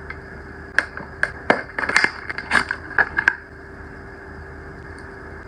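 Hands handling an ornate metal makeup compact: a quick, irregular run of sharp clicks and taps for about two and a half seconds, starting about a second in, over a low steady hum.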